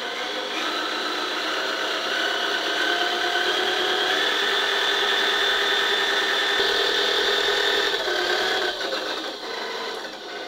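A small motor-driven drive unit running: 3D-printed plastic bevel gears (a 20-tooth pinion and a 40-tooth gear) mesh under a DC motor that spins a printed propeller as its load. The whine rises in pitch and loudness as the voltage is turned up from 9 V. About eight seconds in it drops off and falls in pitch as the unit slows.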